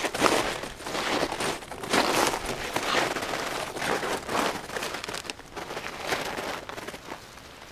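Snowshoes crunching on packed, crusty snow as someone shifts and steps, in uneven crunches about once a second.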